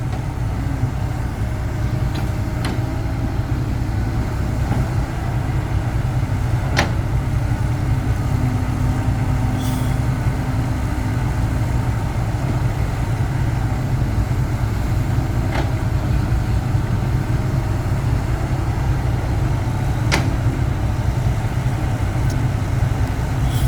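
Truck engine running steadily, a deep constant drone, with a few sharp clicks scattered through.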